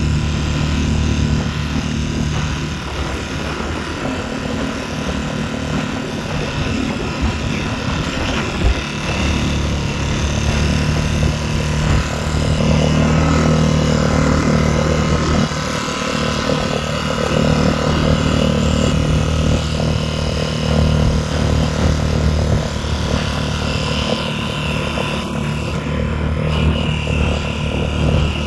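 Tohatsu 3.5 hp outboard motor running steadily under way, with the hiss of water and wind over it.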